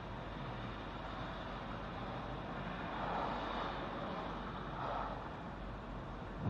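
Steady noise of a car driving, heard from inside the cabin, with two brief swells about three and five seconds in.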